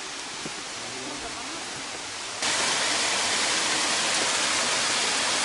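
Rushing water of a small rocky stream spilling over cascades: a steady hiss that jumps louder about two and a half seconds in.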